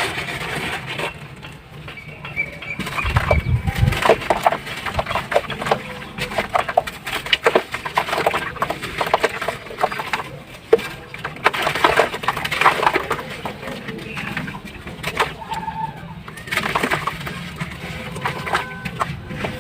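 Dry sand-cement or ash slabs crumbling apart in water: a dense, irregular crackle of small cracks and fizzing, with a heavy low thud about three seconds in.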